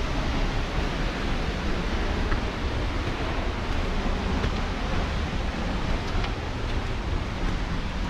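A waterfall's water rushing steadily: an even, unbroken noise with a strong low rumble.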